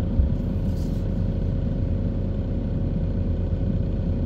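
Car engine idling in stopped traffic, heard from inside the closed cabin as a steady low rumble, with one short knock just after it starts.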